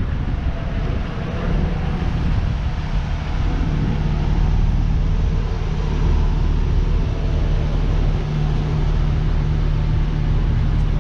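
A vehicle engine running steadily, with a constant low hum under a dense rumble.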